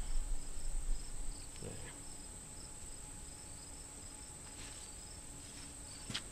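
Steady high chirring of crickets, with a faint repeating chirp above it. Soft handling noises come from an aluminum crank-seal retainer plate being worked by hand, and there is a sharp light click near the end.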